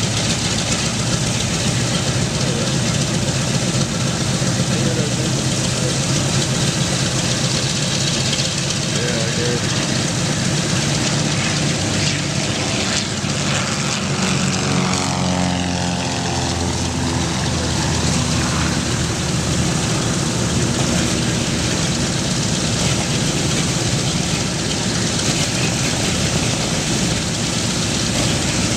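Boeing B-17 Flying Fortress's Wright R-1820 Cyclone radial engines idling steadily after start-up. Around the middle, a light aircraft passes overhead, its engine note falling as it goes by.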